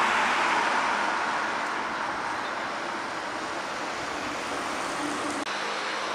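Road traffic noise: a steady rush of passing vehicles, loudest at the start and slowly fading, then an abrupt drop to a quieter background about five and a half seconds in.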